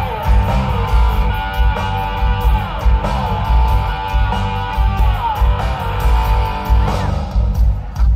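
Live rock band playing through a concert PA: electric guitar with notes that glide down in pitch, over a heavy, pulsing bass and drum beat.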